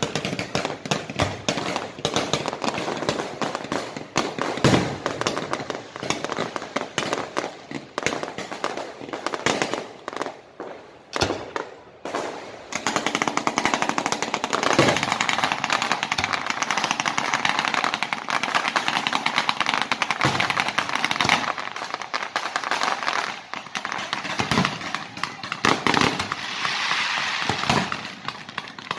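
Fireworks going off in rapid, dense bangs and crackles, thickening into a near-continuous crackle from about halfway through.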